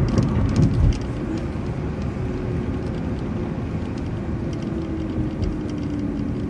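City transit bus driving, its engine and drivetrain running under road noise, with a faint whine that slowly falls in pitch.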